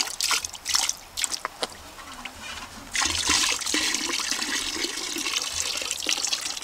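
Old gasoline poured from a Honda pressure washer's plastic fuel tank into a plastic bucket: an uneven trickle and splash for the first second or so, then a steadier, louder pour from about three seconds in. The tank is being drained of stale fuel.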